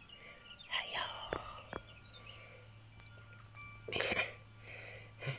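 Soft, whispered speech from a person talking quietly, in two short bursts about a second in and about four seconds in, with a couple of light clicks between them.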